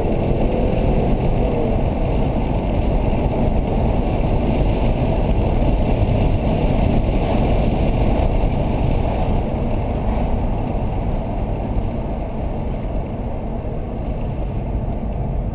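Cabin noise of a 2008 Subaru Legacy GT driving: a steady low rumble of road and wind noise with the turbocharged flat-four engine running underneath, easing off slightly over the last few seconds.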